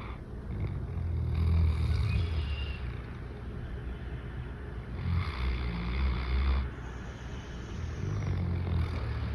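Great Pyrenees dog snoring: three long, low snores in slow succession, each a few seconds apart.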